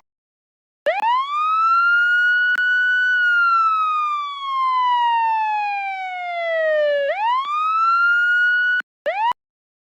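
Police siren wailing. After about a second of silence a clear tone rises quickly and holds high, then slides slowly down over about four seconds and jumps back up sharply. Near the end it cuts off abruptly, with one short chirp before another gap.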